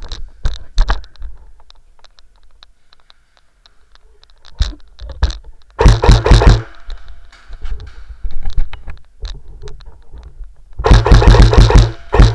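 Airsoft guns firing: a few single shots near the start, then rapid full-auto bursts, one of about a second around the middle and a longer one near the end.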